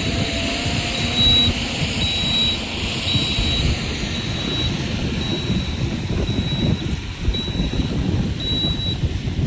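Heavy mining machinery's engine rumbling steadily, with a reversing alarm beeping about once a second.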